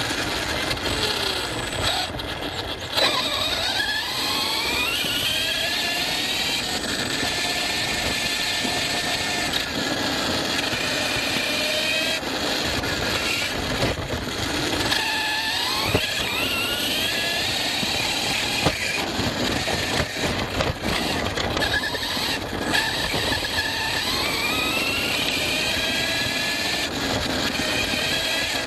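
ARRMA Fireteam 6S RC car's brushless motor and drivetrain whining, the pitch rising and falling over and over with the throttle. Underneath is a steady rush of tyres on rough off-road ground, with a few sharp knocks from bumps.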